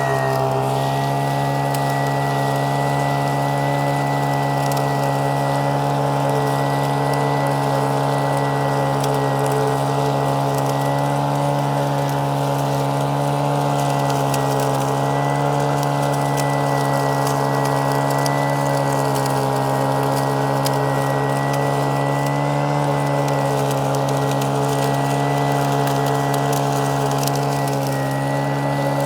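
Gold-prospecting vac pac's small engine running steadily at high speed with a constant high whine, while gravel ticks and rattles as it is sucked up through the hose.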